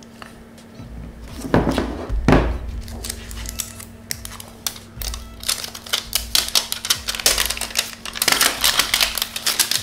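Two knocks as two smartphones are turned over and set down on a table, then a run of crackling as the protective plastic film is peeled off their plastic backs, thickest near the end.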